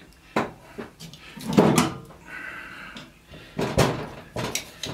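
Sharp metal knocks and clunks as a microwave oven transformer is handled and set down on a metal bench top, with a short scrape of a hand file against it about halfway through. The filing is done to check whether the windings are aluminum or copper.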